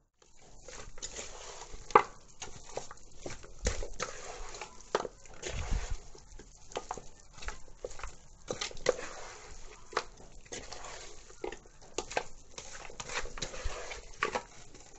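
A hand squeezing and tossing raw chicken pieces coated in flour and spices in a metal bowl: irregular wet squishing with short knocks against the bowl. The loudest is a sharp knock about two seconds in.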